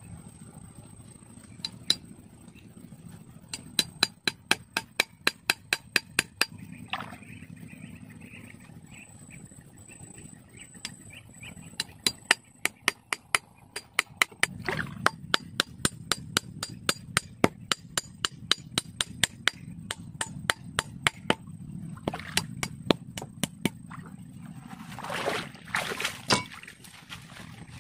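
Runs of rapid, sharp knocks, about three to four a second, with pauses between the runs. They sit over a steady low background noise, and there is a short scraping rustle near the end.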